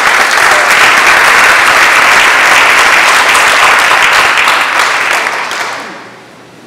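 Audience applauding: dense, even clapping that dies away about six seconds in.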